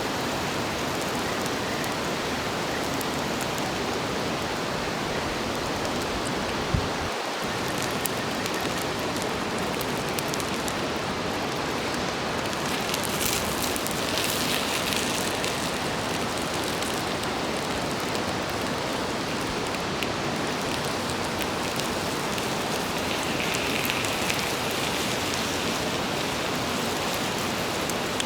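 Food sizzling steadily on an iron griddle plate over a campfire, a dense frying hiss with small crackles, and one sharp knock about seven seconds in.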